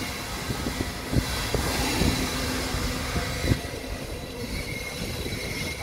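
Express train hauled by an electric locomotive arriving at the platform, its wheels squealing in thin high tones over a steady rumble, with a handful of irregular knocks from the wheels on the track.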